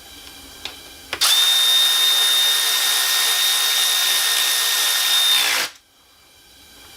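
Power drill driving in a screw that fastens the new cooling fan motor to the shroud: a couple of small clicks, then the drill runs steadily at one pitch for about four seconds and winds down to a stop.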